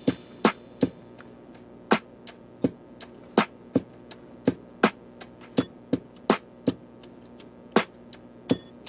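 Background music: a beat of sharp, clicky percussion hits, about two to three a second, over a faint steady backing.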